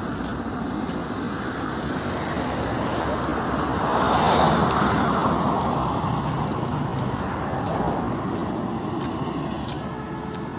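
Road traffic noise: a steady rush of engines and tyres that grows louder about four seconds in and then fades, as a vehicle passes close.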